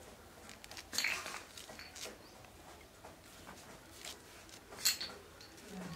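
A fresh orange being peeled by hand: soft tearing and crackling of the peel, with a louder rip about a second in and a short sharp snap near the end.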